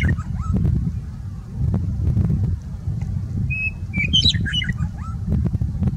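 Western meadowlark singing. The tail of one song phrase is heard at the very start, and about three and a half seconds in a full phrase follows: a clear held note, then a quick run of rising and falling notes. A steady low rumble runs underneath throughout.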